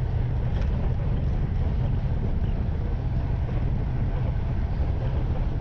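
Steady wind rush buffeting the microphone of a handlebar-mounted action camera on a road bike travelling at about 44 km/h, a deep, even rumble with no break.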